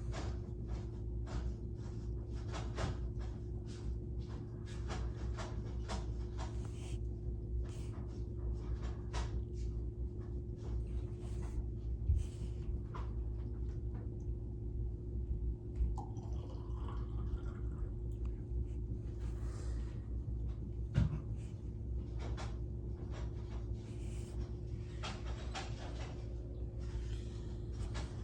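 Steady low electrical hum, with scattered soft scratches, rustles and clicks and a few dull thumps.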